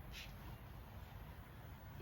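Quiet room tone: a low steady rumble, with one brief soft hiss a fraction of a second in.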